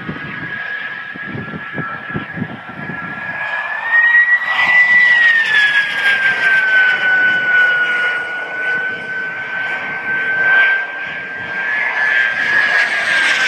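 Radio-controlled J-10 model jets flying overhead, their engines giving a steady high whine. The pitch rises about four seconds in, then slides back down and holds.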